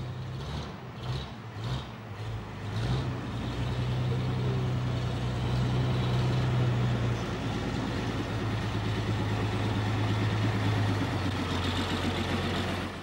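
Bedford horse lorry engine cranked on its starter with about five pulsing turns, catching about three seconds in and then running steadily. Its note drops a step about seven seconds in and again about eleven seconds in.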